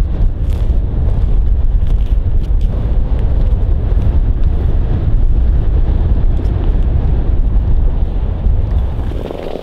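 Strong wind buffeting the microphone: a loud, steady low rumble that drops away sharply near the end.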